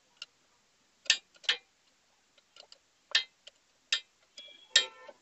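Sharp metallic clicks and clinks of a spanner working a 14 mm tensioner nut loose on a motorcycle's rear wheel, coming at uneven intervals with a short ringing clink near the end.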